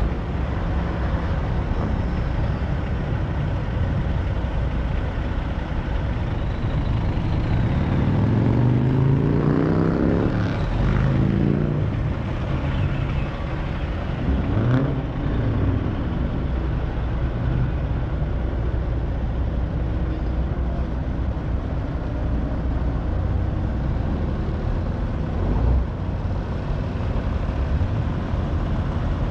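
Heavy diesel truck engines running steadily, with one revving up about eight seconds in and again briefly around fifteen seconds.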